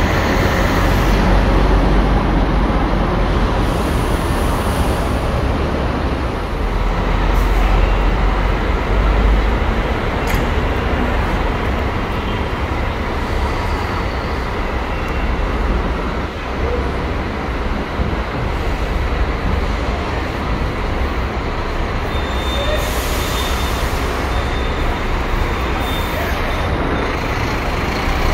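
Diesel city buses running at a bus station, a steady low engine rumble as they idle and move, with short air-brake hisses about two-thirds of the way through.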